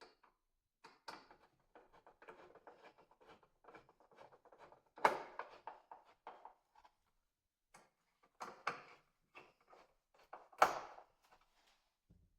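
Handling and working noises: a run of small irregular clicks and scratchy ticks, with two louder sharp knocks, one about five seconds in and one near the end.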